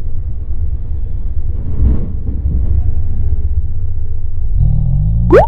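Steady low rumble of riding a motorcycle in traffic: engine and wind noise on the microphone. Near the end an engine note rises, and a brief sharp rising squeal cuts in just before it ends.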